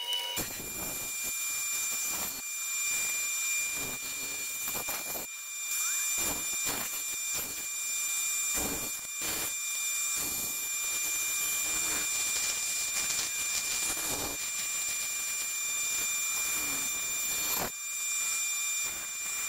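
Bandsaw running with a steady high whine while its blade cuts curves through a wooden board, the rasp of the cut swelling and easing again and again as the wood is fed and turned.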